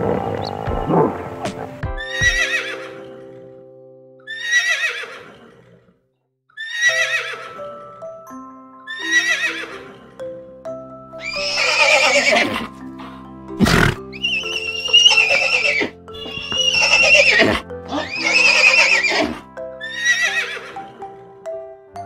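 Horse whinnying over and over, about a dozen neighs each under a second long, over background music of held notes. The calls are loudest in the middle stretch, and a single sharp knock comes about two-thirds of the way through.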